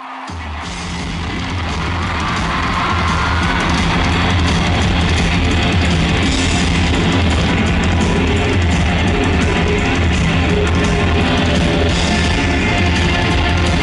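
Live rock band playing in an arena, heard from the audience: heavy electric guitar, bass and drum kit. The music fades in over the first few seconds, then holds loud and steady.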